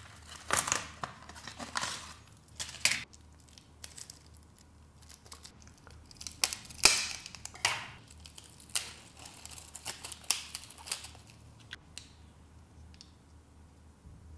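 SD card retail packaging (card backing and clear plastic blister) being torn and peeled open by hand: irregular tearing and crinkling, loudest about seven seconds in and dying away near the end.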